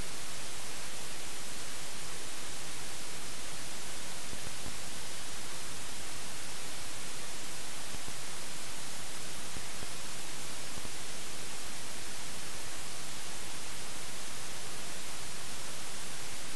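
Steady, unbroken static hiss with nothing else in it: the audio track of a helmet camera whose sound recording failed.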